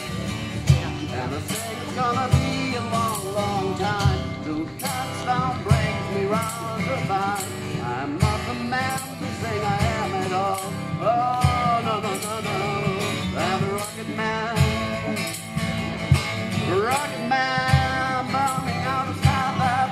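A man sings to his own strummed acoustic guitar, with low thumps about every second and a half marking the beat.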